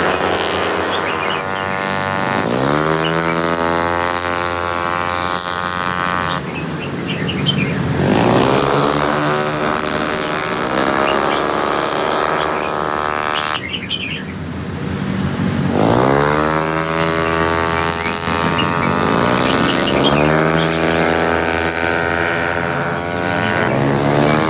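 Race motorcycle engines accelerating hard, the pitch climbing steeply and then holding high; this happens three times, with abrupt breaks between. Faint high chirps are heard over the engines.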